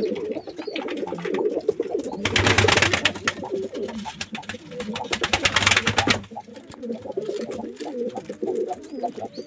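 Domestic pigeons cooing continuously in a small wooden loft. Two loud bursts of wing flapping, about two seconds in and again from about four and a half to six seconds, as birds take off inside the loft.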